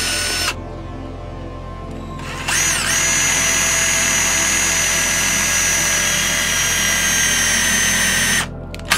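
Power drill boring holes into thick plywood, running with a high whine. It stops just after the start, spins up again about two and a half seconds in and runs steadily for about six seconds. A short burst follows near the end.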